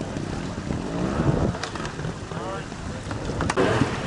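Wind rumbling on the microphone over an outdoor background, with a trials motorcycle engine briefly revving up and down a little past halfway.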